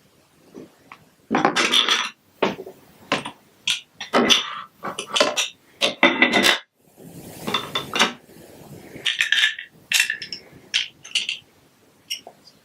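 Plastic Lego Duplo bricks clattering and clicking as they are handled and pressed together: a run of irregular sharp knocks, with a longer rattling stretch a little past halfway.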